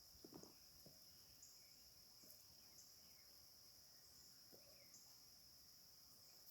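Near silence, with a faint, steady high-pitched insect chorus, like crickets, and a few short faint chirps over it.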